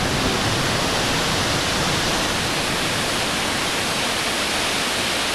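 Water released through the partly opened floodgates of the Benagéber dam, pouring down a concrete spillway chute as a steady, unbroken rush of whitewater.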